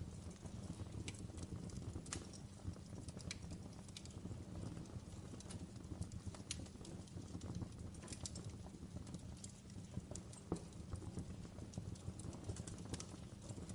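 Wood fire crackling in a fireplace: a steady low rumble of burning with irregular sharp pops and snaps, several every few seconds.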